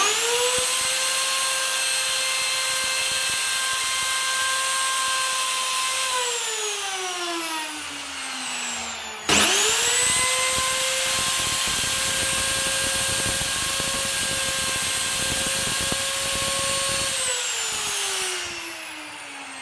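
Plunge router with a keyhole bit cutting a hanging slot in oak: the motor whines up to speed at once, runs steadily for about six seconds, then is switched off and spins down with falling pitch. About nine seconds in it starts again sharply, runs for about seven seconds more and spins down again near the end.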